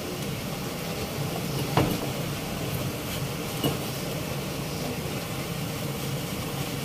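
A kitchen knife cutting a paratha on an iron tawa, the blade knocking sharply against the pan twice, over a steady hum of kitchen noise.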